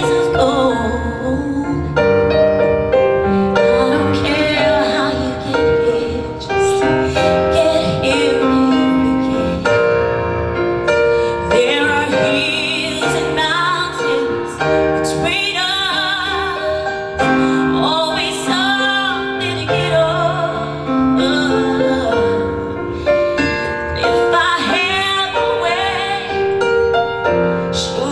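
Solo singer performing a ballad with vibrato on held notes, accompanied by piano.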